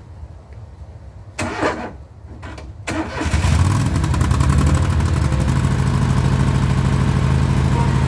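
John Deere L130 riding mower engine being started with its newly rewired push-button starter: a short crank about a second and a half in, then the engine catches just under three seconds in and settles into a steady run.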